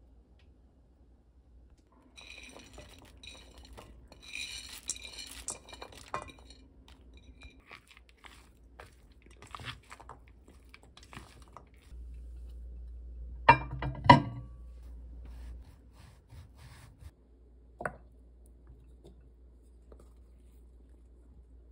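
Clinking and scraping of a plastic rice paddle and rice against a stainless steel mixing bowl as the rice is mixed, with two loud knocks about halfway through and a single sharp click later.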